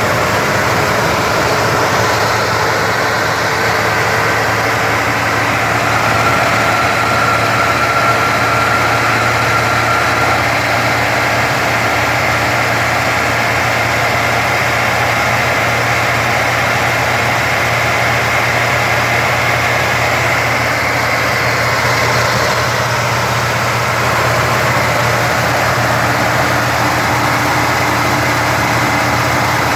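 1979 Cadillac Coupe DeVille V8 idling steadily after a cold start. This is the cold-start idle that the owner calls very lumpy and that smooths out only as the engine warms.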